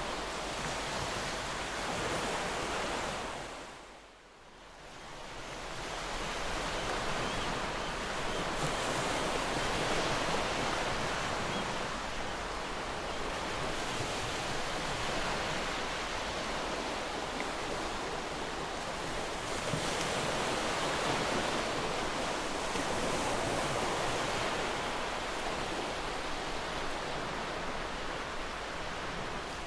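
Steady rush of falling or crashing water, with no tones or rhythm in it. It fades almost out about four seconds in and comes back, then swells and eases slowly.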